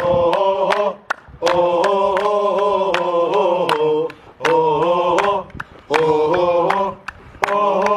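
Group of men singing a football fan chant in unison, in several sung phrases with short breaks between them, with hand claps keeping time.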